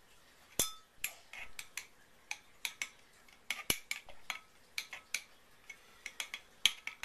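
A utensil stirring and clinking against a glass measuring cup: irregular sharp taps, a few ringing briefly, the loudest about half a second in, near the middle and near the end.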